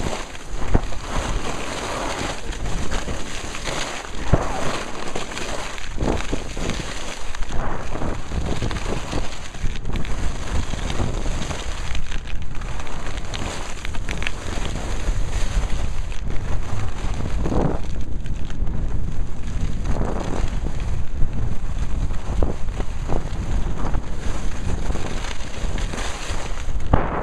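Wind buffeting the microphone of a skier moving downhill, a steady rumbling rush, with the hiss and scrape of skis on packed snow rising now and then through the turns.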